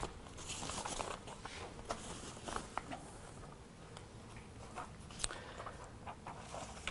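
Sheets of paper rustling and being handled, faint, with scattered small taps and one sharper click about five seconds in.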